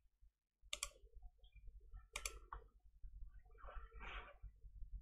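A few quiet, sharp clicks of a computer mouse: one about a second in and a quick pair a little after two seconds.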